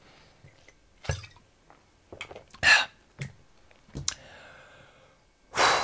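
Short mouth and throat sounds of a man drinking from a bottle: gulps and clicks about a second apart, then a louder breathy exhale near the end.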